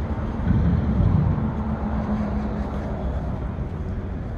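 Low rumble of road traffic. A vehicle's engine hum swells about half a second in and then fades.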